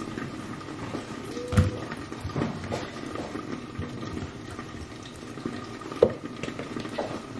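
Kitchen handling sounds as raw boerewors sausage coils are laid on a wooden chopping board: light knocks about a second and a half in and again near six seconds, over a steady faint hiss.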